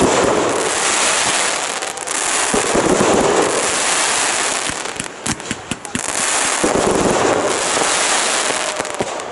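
Fireworks display: three heavier bursts, a few seconds apart, over a dense, continuous crackle of many sharp pops from crackling stars.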